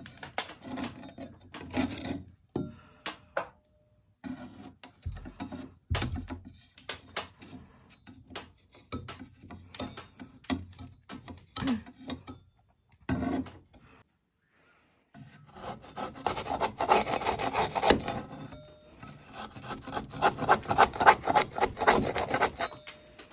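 A metal okonomiyaki spatula scraping a Japanese sand wall off in repeated strokes. After a short pause a little past halfway, the scraping comes faster and louder.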